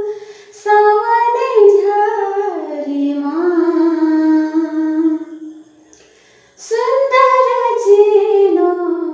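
A woman singing unaccompanied, in two slow phrases of long held notes that each drift downward in pitch, with a short breath pause about six seconds in.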